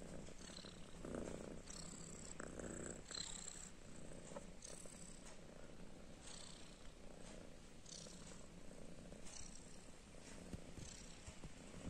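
Tabby kitten purring softly, a low steady purr that swells and fades every second or two.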